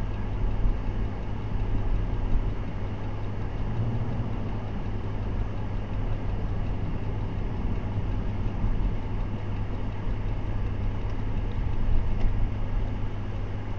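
Steady road and engine noise inside a moving minivan's cabin, a constant low hum with even tyre rumble under it.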